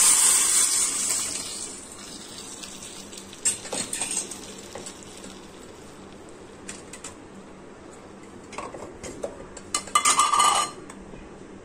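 Cooked tamarind-tomato rasam poured into hot oil tempering in a steel pot, hissing and sizzling loudly, then dying away over the first two seconds. After that come a few light metal clinks, and a louder clatter of utensils against the pot near the end.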